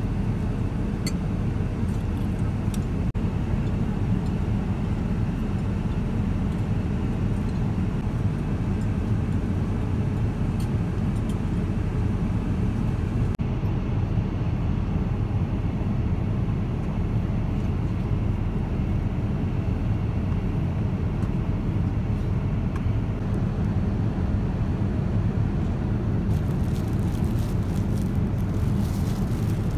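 Steady low cabin drone of a Boeing 787-9 airliner in flight, heard from a seat inside the cabin. Near the end, plastic wrapping crinkles as a bagged blanket is handled.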